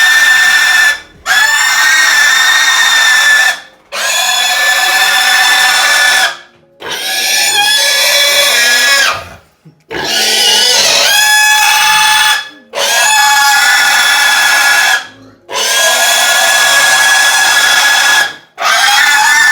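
A young pig screaming while it is being castrated: long, loud, high-pitched squeals of two to three seconds each, about eight in a row, with brief gaps for breath between them.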